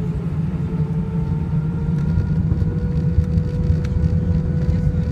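Airbus A321 jet engines spooling up for the takeoff roll, heard inside the cabin over the wing: a deep, steady rumble with a thin whine that slowly rises in pitch as the level builds.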